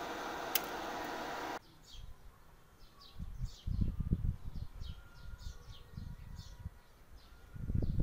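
A steady hiss that cuts off abruptly about a second and a half in, followed by a small bird chirping repeatedly with short high notes, over low rumbling thumps on the microphone.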